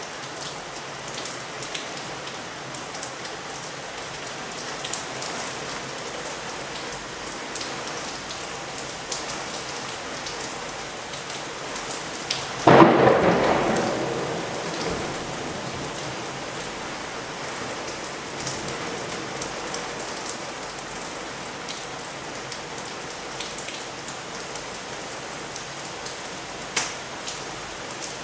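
Heavy rain falling steadily, with scattered sharp drops. About halfway through, a sudden loud crack of thunder fades out over about two seconds.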